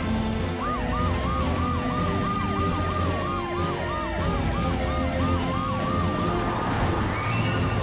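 Cartoon emergency-vehicle sirens starting about half a second in: a fast repeating yelp and a slower rising and falling wail sounding together, over background music.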